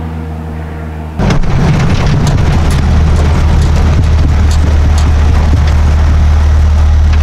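Hot-rodded Ford Model A coupe's engine heard from inside the car: a loud, steady low rumble as it rolls slowly, with scattered sharp ticks. About a second in this suddenly replaces a fainter, steady engine hum heard from a distance.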